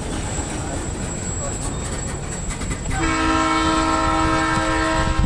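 A diesel freight train rumbles steadily for about three seconds. Then, about three seconds in, the lead SD60M locomotive's Nathan Airchime RS-3L horn sounds a loud, held chord that is still going at the end.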